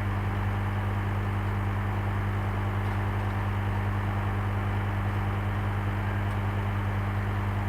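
Engine idling steadily, a deep even hum with no change in speed.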